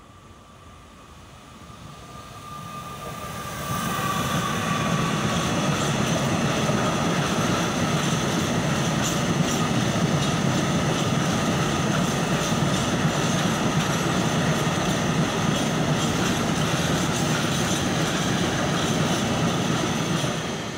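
Freight train hauled by an electric locomotive passing close by at speed: it grows louder over the first four seconds as it approaches, with a ringing tone rising in pitch, then holds a steady loud rush of wheels on rail with high squealing, ringing tones from the wagons. The sound cuts off suddenly at the end.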